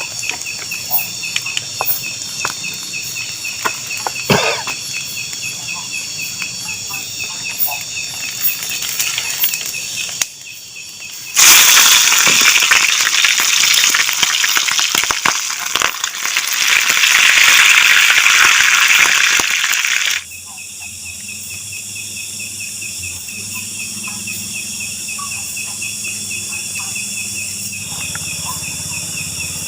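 A chorus of insects chirring with a quick pulsing rhythm, with a few small clicks. About eleven seconds in, a loud, even hiss takes over for about nine seconds and cuts off suddenly. The insects then return over a low hum.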